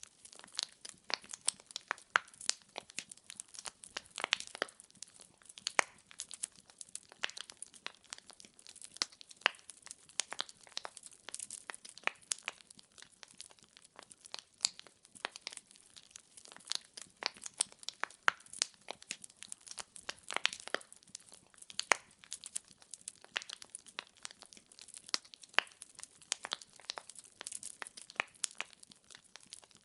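Wood fire in a fireplace crackling: burning logs popping and snapping in many irregular sharp clicks over a faint hiss.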